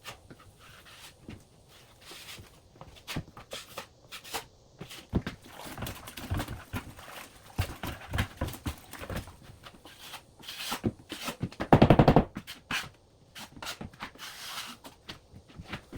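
Drywall knife scraping and slapping joint compound onto a wall joint: irregular scrapes, clicks and knocks, with a louder rapid rattling scrape about twelve seconds in.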